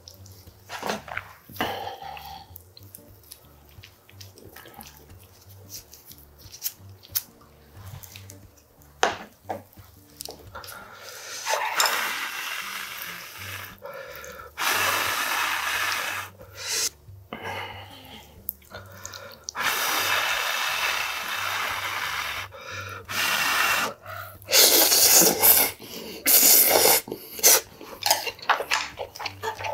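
Buckwheat noodles in broth being slurped in several long, loud pulls through the mouth, with chewing in between. Soft clicks and small mouth sounds come first, before the slurping starts about twelve seconds in.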